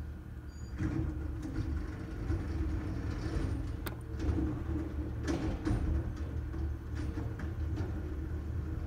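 McNeilus ZR side-loader garbage truck's natural-gas engine running, growing louder about a second in as its hydraulic arm lifts a recycling cart. Several sharp knocks and clatters follow as the cart is tipped and shaken over the hopper and recyclables fall in.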